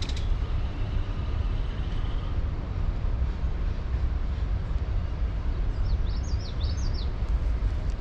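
A steady low rumble throughout, with a faint high, fast-ticking whirr in the first two seconds from a spinning reel being wound. A small bird sings a quick run of rising and falling chirps a little past the middle.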